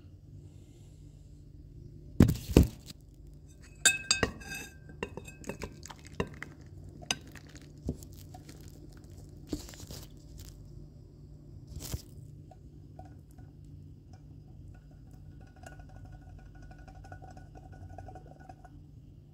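A metal saucepan and spoon clinking and knocking against a ceramic plate while stew is served, several sharp knocks with a short ring, the loudest about two seconds in and a quick cluster about four seconds in. A low steady hum lies underneath.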